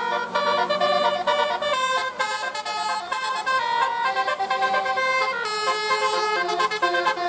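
Indonesian bus 'telolet' multi-tone air horn playing a tune, its notes stepping up and down several times a second.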